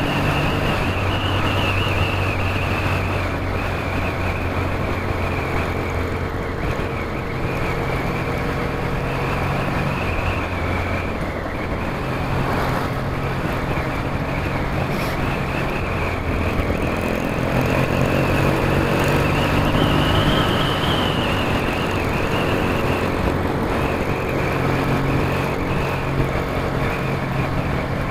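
Motorcycle riding along at a steady road speed, heard from a helmet-mounted camera: a continuous engine drone under rushing wind noise, its pitch rising and falling gently with the throttle.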